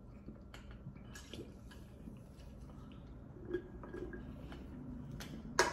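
A person drinking soda from an aluminium can, with soft swallowing gulps, followed near the end by a single sharp knock.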